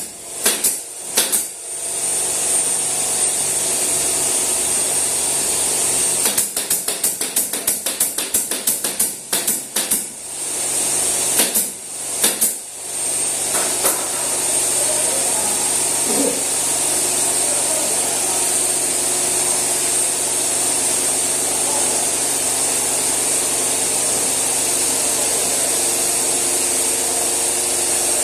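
Pneumatic nail gun firing rapid strings of shots, about five a second, fastening wallboard to wooden studs; the shots stop about 13 seconds in, leaving a steady hiss with a thin high tone.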